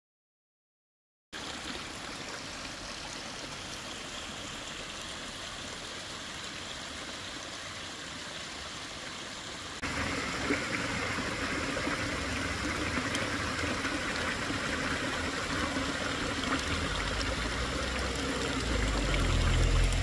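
Small waterfall's water rushing steadily. It starts about a second in and comes in louder and fuller from about ten seconds in, with a low rumble building near the end.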